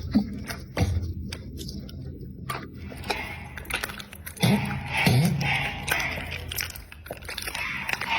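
American Pocket Bully dog chewing food, with many sharp crunches and clicks of teeth, and a few short low sounds mixed in.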